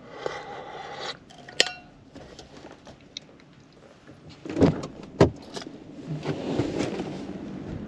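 Chevrolet pickup truck's driver's door being unlatched and pushed open: a few small clicks in the cab, then two loud clunks about four and a half and five seconds in, followed by a rising rush of outside wind.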